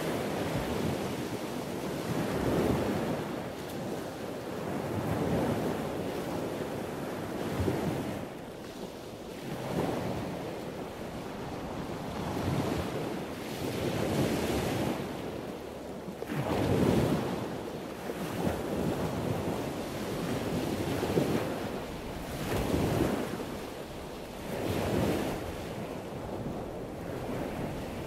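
Rushing wind and water noise aboard a motor yacht running underway, gusting on the phone's microphone so that it swells and fades every two to three seconds.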